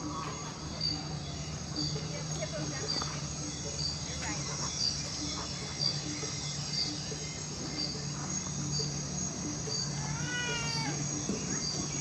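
Insects chirping: an even, high chirp about twice a second over a steady high hiss. About ten seconds in there is a short run of falling notes.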